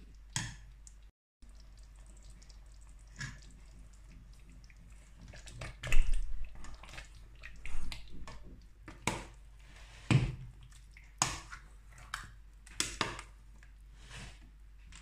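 A spoon stirring thick tomato stew in a stainless steel pot: irregular wet squelching strokes with the spoon knocking and scraping against the pot.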